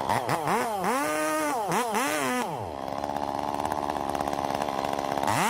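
Chainsaw engine revved up and down several times in quick succession, then falling back to a steady idle. It revs again near the end.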